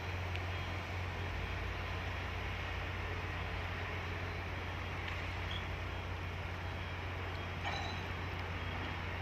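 Heavy diesel engine running steadily with a low drone, with a short clank about three quarters of the way through.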